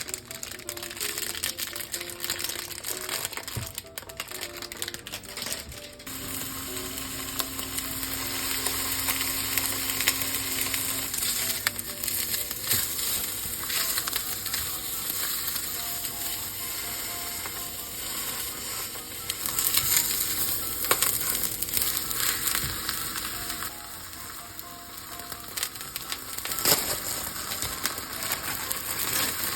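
Food frying in oil in a pan, a steady sizzle with a few sharp clicks now and then, under soft background music.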